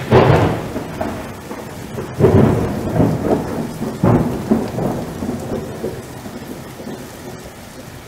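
Thunderstorm: rain falling steadily with rolls of thunder, the loudest right at the start and more at about two and four seconds in, fading off toward the end.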